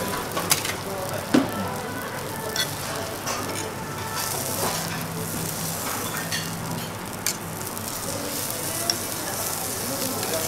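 Food sizzling steadily on a hot steel teppanyaki griddle, with sharp clicks and taps of metal spatulas against the plate, the loudest about a second and a half in.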